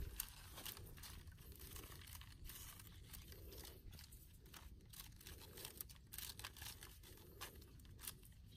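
Hands rummaging through a woven bamboo basket: faint, irregular rustling and crackling of the cane and its contents.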